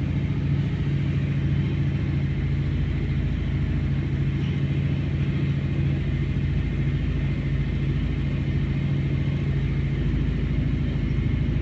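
A VAZ-2101 Zhiguli's engine idling steadily from a cold start on the choke.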